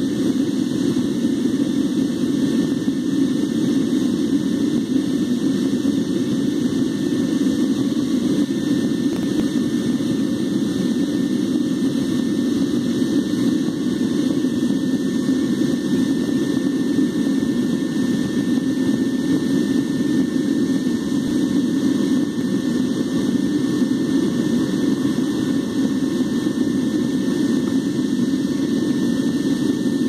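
Backyard metal-casting furnace's burner and air blower running steadily: a deep, even rushing noise with a faint high whine above it.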